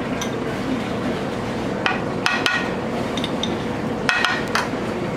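A metal spoon clinks against a frying pan while thick paste is knocked off it. There are two groups of sharp, ringing clinks, about two seconds in and about four seconds in, over a steady background hiss.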